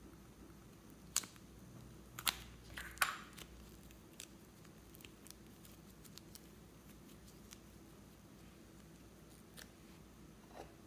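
Small plastic snap-lid container being opened: three sharp plastic clicks in quick succession, then a few faint soft handling sounds as the clay is taken out.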